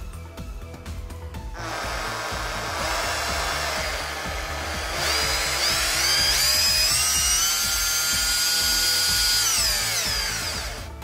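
Makita DHP458 cordless hammer drill driver motor spinning up on its newly replaced trigger switch. Its whine rises in two steps, holds at a high pitch, and then winds down and stops near the end.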